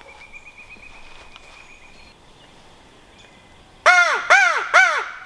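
Crow locator call blown by a turkey hunter: three loud, harsh caws in quick succession about four seconds in, each rising and then falling in pitch.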